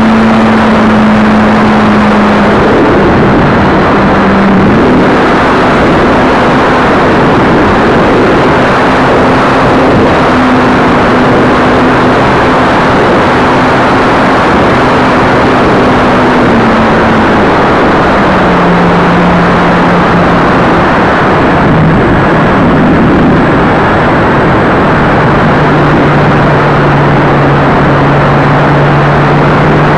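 Electric motor and propeller of a ParkZone F4U Corsair RC plane, heard through a camera mounted on the plane in flight: a loud, steady drone over heavy wind rush. The drone's pitch steps up about five seconds in, then drops lower twice in the second half as the throttle is eased back.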